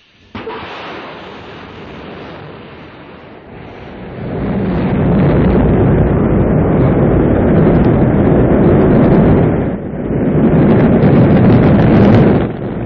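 Rocket launch: a sudden burst at ignition, then a low rumble that builds about four seconds in to a loud, steady roar of rocket engines at liftoff, dipping briefly twice near the end.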